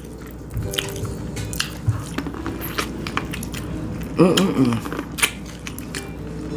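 Close-miked biting and chewing on buttered corn on the cob from a seafood boil, with wet smacks and small crunches. About four seconds in there is a short hummed vocal sound.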